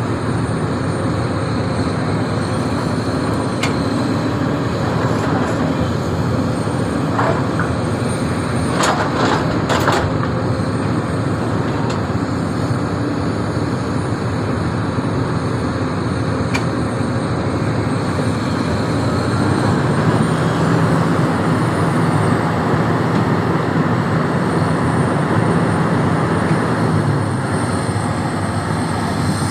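Hydraulic excavator's diesel engine running steadily as it digs soil, with a few sharp knocks about seven to ten seconds in. From about twenty seconds in, the engine holds a steadier, higher note for several seconds while it works under load.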